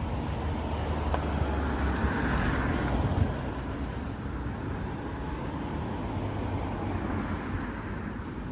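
Road traffic: a car passes, loudest about two to three seconds in, over a steady low rumble.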